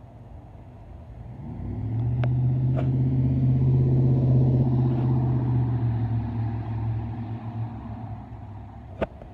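A road vehicle passing close by: a low, steady engine hum swells over about two seconds, holds, then fades away over several seconds. A few faint clicks, and one sharper click near the end.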